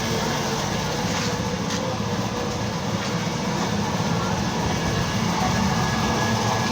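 Heavy machinery running steadily: a continuous low rumble with a rattling, even texture and a faint steady hum.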